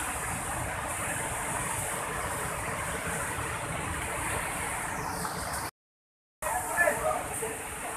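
Steady rushing of a river in flash flood, one continuous noise of fast-moving water. The sound cuts out for under a second about six seconds in, then the rushing returns with a few louder sudden sounds.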